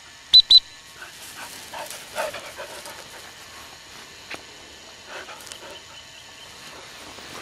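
Springer spaniel panting close by, with two short, loud high-pitched pips just after the start.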